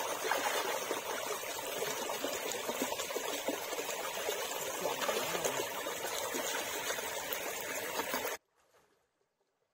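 Water trickling and running steadily in a small stream channel, cutting off abruptly near the end.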